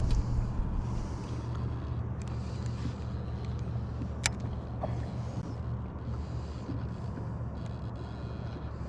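Steady low hum of a boat's motor running without change, with one sharp click about four seconds in.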